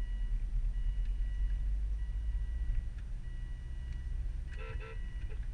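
Car driving, heard from inside the cabin as a steady low rumble of engine and road noise. Two short squeaks come close together near the end.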